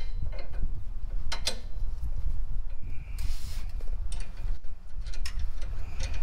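Scattered light clicks and knocks of hands and tools working on an engine, with a short hiss about three seconds in, over a steady low rumble.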